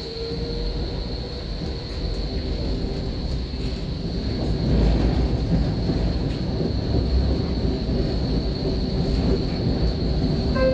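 Interior running noise of a tram: a low rumble of wheels on rails and drive, growing louder about four seconds in as the tram picks up speed after leaving a stop. A steady thin high whine sounds throughout.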